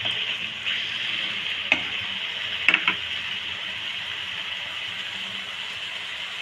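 Chicken masala sizzling steadily in a frying pan, with a couple of light clicks about two and three seconds in.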